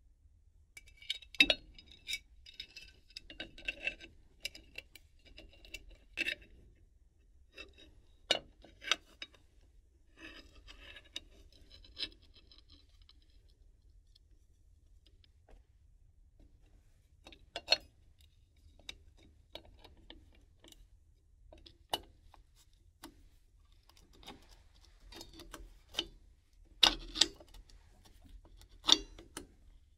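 Metal tools and small brake parts clinking and tapping as front drum brakes are worked on: scattered sharp clicks and short metallic clinks at irregular intervals, with a few louder knocks.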